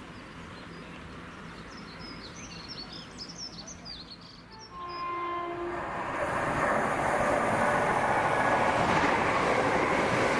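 Small birds chirp over a quiet platform, then a train sounds a brief horn about five seconds in and comes through the station, its running noise rising loud and steady.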